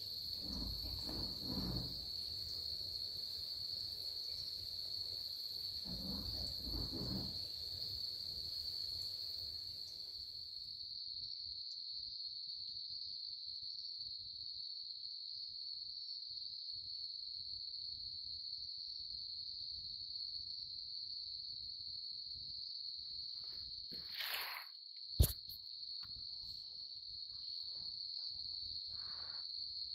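Insects trilling steadily at one high pitch, the chorus typical of crickets. Near the end there is a single sharp click, the loudest sound.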